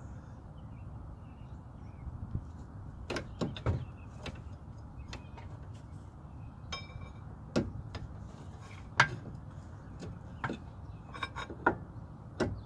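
Scattered metal clicks and knocks as a new CV axle's splined shaft is worked into the wheel hub and steering knuckle, with one short metallic ring about seven seconds in, over a steady low rumble.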